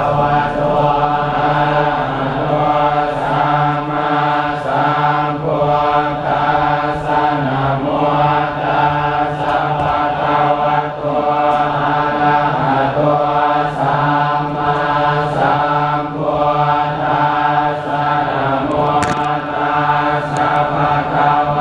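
A large group of Buddhist monks chanting together in unison, a continuous recitation held on one low, steady pitch.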